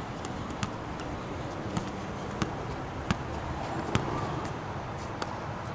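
A basketball being dribbled on an outdoor hard court: a sharp bounce every second or so, over steady outdoor background noise.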